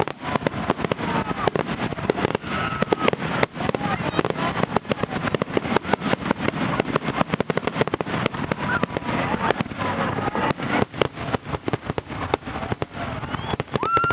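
Fireworks finale: a loud, dense barrage of rapid bangs and crackles following one another without pause.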